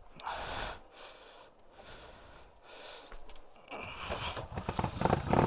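Heavy, out-of-breath breathing just after bump-starting a motorcycle. About four seconds in, the just-started 2009 Kawasaki Vulcan Nomad's V-twin engine comes up in even pulses and gets louder.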